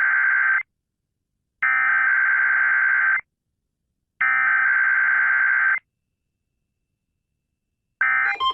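Emergency Alert System SAME header: the digital code that opens an EAS test, sent as three identical buzzing data bursts of about a second and a half each, a second of silence between them. A short burst of tone starts again just before the end.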